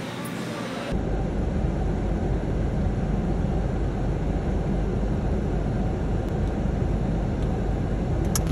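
Steady low rumble in a car's cabin, starting about a second in with the cut from the store's background hiss.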